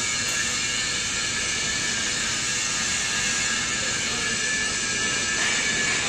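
Hydraulic system of a 160-ton scrap metal baler running: a steady hiss with a faint whine.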